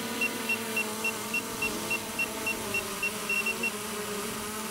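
DJI Mini 4 Pro drone hovering low just after takeoff: a steady propeller hum of several tones. Over it runs a rapid series of short high beeps, about three to four a second, that stops near the end.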